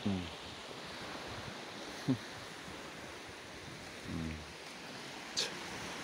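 Steady wash of sea surf and wind, with a few short low sounds that fall in pitch, the sharpest about two seconds in, and a brief high chirp near the end.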